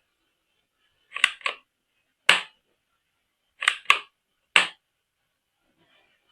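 About six sharp clicks from hard toy parts being handled, some in quick pairs, with quiet gaps between.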